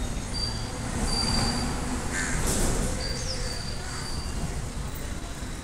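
Indian Railways goods train rolling along the track as it moves away: a steady low rumble from the wagons' wheels on the rails, with thin high wheel squeals coming and going.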